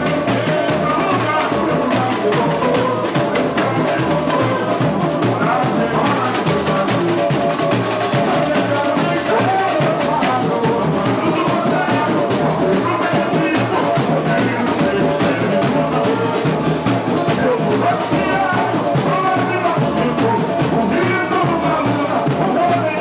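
Live samba from a samba school: the percussion section plays a steady, driving beat under string accompaniment and singing, loud and without a break.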